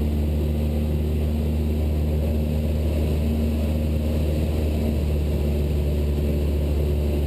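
Cessna 172 Skyhawk's four-cylinder piston engine and propeller droning steadily in cruise, heard inside the cabin.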